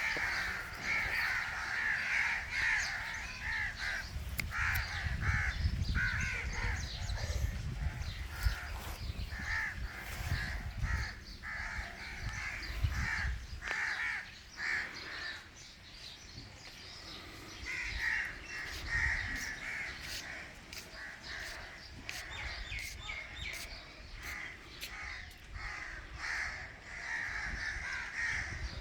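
Indian ringneck parakeet giving harsh, rasping squawks in repeated runs, quieter around the middle. Sharp clicks fall between the calls as it eats, over a low rumble in the first half.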